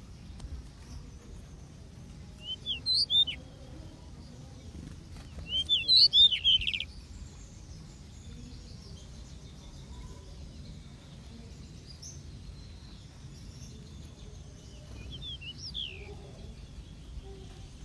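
Aviary birds chirping in short clusters of quick rising and falling chirps: one about 2.5 s in, a louder burst around 6 s, and another around 15–16 s. A steady low rumble runs underneath.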